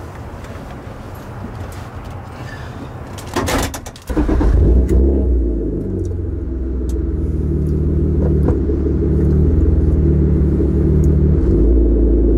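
BMW E36 325is straight-six engine starting: a short clatter about three and a half seconds in, then the engine catches at about four seconds and runs at a loud, steady idle, strongest in the deep bass.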